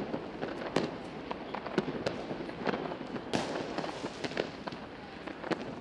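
New Year's Eve fireworks and firecrackers going off: irregular sharp bangs and cracks, several a second, over a steady crackle, with a louder hissing burst about three and a half seconds in.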